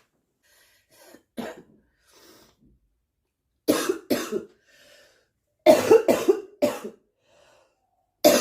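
A girl coughing in fits. A small cough comes about a second and a half in, then two coughs near four seconds, then a run of about four close together around six seconds, and another fit starts right at the end.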